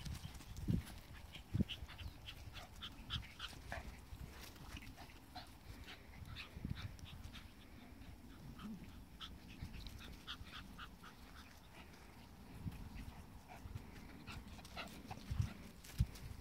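Small dogs giving many short, high yips and whines as they play and chase one another, with a few dull thumps near the start and near the end.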